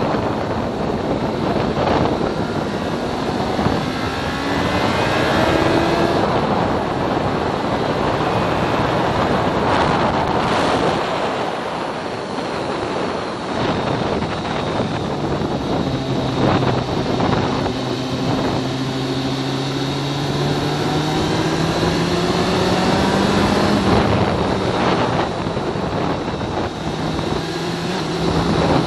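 Kawasaki Z750R's inline-four engine running at moderate revs, around 5,000 rpm on light throttle, its pitch rising several times as the bike accelerates and dropping back between. Heavy wind noise on the microphone runs over it.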